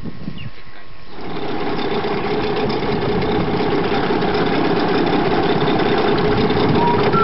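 Small boat's outboard motor running steadily under way on the river, coming in abruptly about a second in after a moment of quiet outdoor ambience with a few bird chirps.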